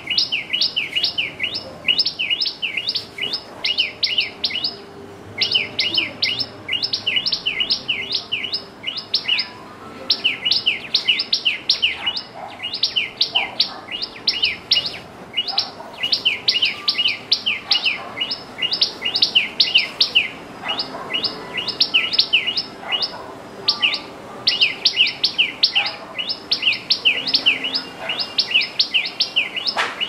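Common tailorbird singing: loud, sharp, high notes repeated rapidly, about four or five a second, in runs of several seconds with brief pauses between them.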